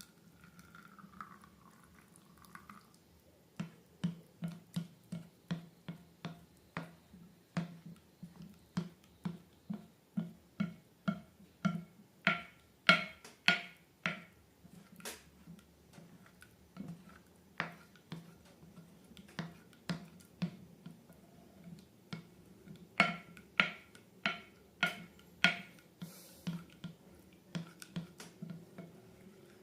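Slime being pressed and poked, making a run of sharp wet clicks and pops, about two a second. They start a few seconds in and are loudest around the middle and again near the end.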